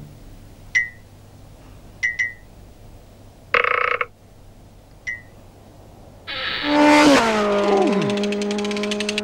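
Cartoon sound effects: a few short high blips about a second apart, a brief hiss, then a louder buzzing rattle with a falling whistle that settles into a steady held tone.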